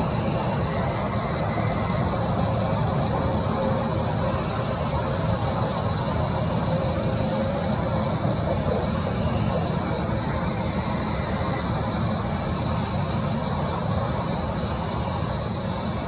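Steady outdoor night ambience: a continuous low rumble with an even, high insect drone over it.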